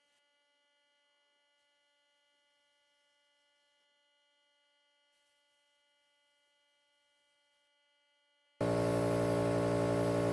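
Near silence, then about eight and a half seconds in a loud, steady hum with many pitched overtones and a hiss starts abruptly.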